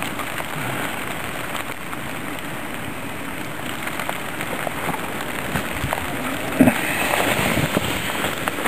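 Steady rain falling, an even hiss and patter. A few sharp knocks come in the last couple of seconds, the loudest about two-thirds of the way through.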